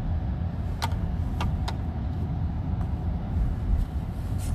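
Low, steady rumble of a car heard from inside the cabin, with a few sharp clicks about a second in.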